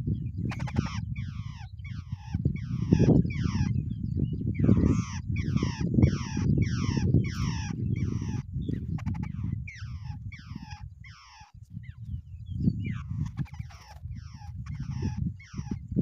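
Babblers calling: a long run of harsh, repeated descending notes, about two or three a second, with a short lull partway through. A loud low rumble runs underneath.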